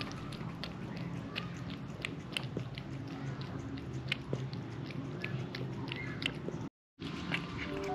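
A mother cat licking and grooming her newborn kittens: quick, irregular wet licking and smacking clicks, cut off by a brief dropout near the end.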